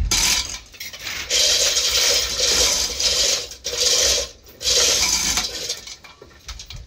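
Metal clattering and scraping on engine parts in four loud bursts of under a second each, about a second apart, dying away near the end.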